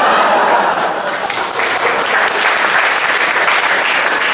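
Audience applause, dense and steady.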